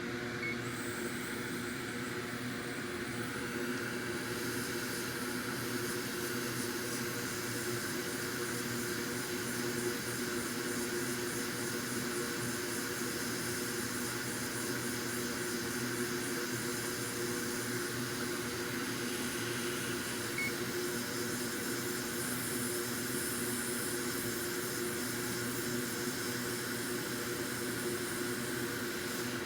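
Steady whir of a small electric fan or blower with a constant low hum, unchanging throughout.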